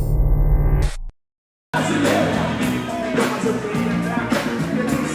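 A low steady hum for about a second, then a cut to a brief silence, then a live band playing with drums and bass.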